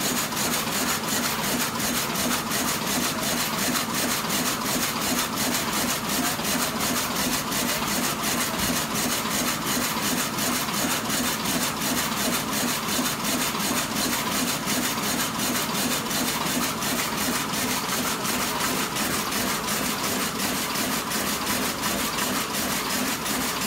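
Tongda TD-798 jute rapier loom running at 180 rpm while weaving heavy jute sacking: a steady, fast clatter with an even beat that does not change.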